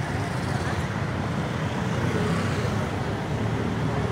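Steady road traffic noise from cars passing along a city street, an even, continuous low rumble.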